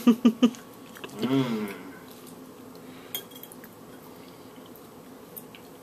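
A fork clinks against a dinner plate a few times in a quiet room, with short voice sounds in the first second and a half.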